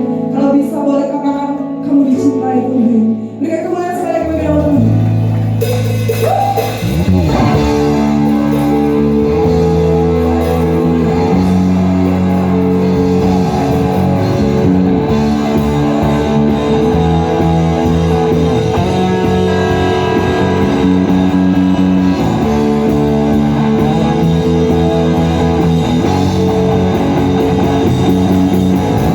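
Live worship band playing a song. A sung line is heard in the first few seconds, then bass comes in about four seconds in and cymbals about two seconds later. The full band with electric guitar plays on from there.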